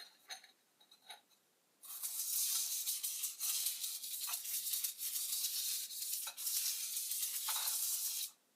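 A few light clinks, then about six seconds of steady, scratchy hissing noise with a few brief breaks, which stops suddenly near the end.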